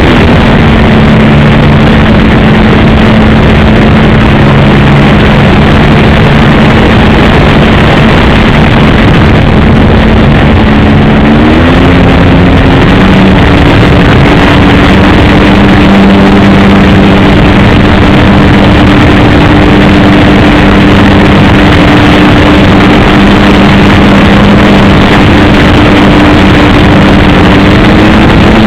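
The RC Piper J-3 Cub model's engine runs loudly at steady throttle over a dense rushing noise. Its pitch rises about twelve seconds in, then holds, and edges up a little near the end.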